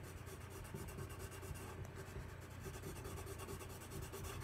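Pencil scratching faintly across paper in rapid, repeated shading strokes.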